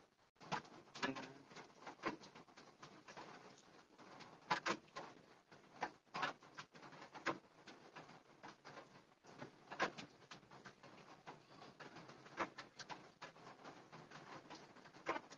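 Soft, irregular rustling and brushing of a dark blue uniform's fabric as it is handled and folded, with scattered light clicks.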